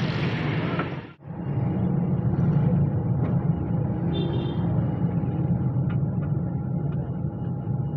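Car on the move, a steady low road rumble with a faint constant tone and a few faint short ticks; the sound drops out briefly about a second in.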